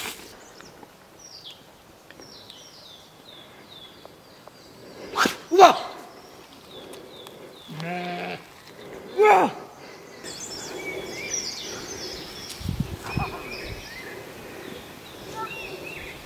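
Sheep bleating: three loud wavering calls about five, eight and nine seconds in, over small birds chirping.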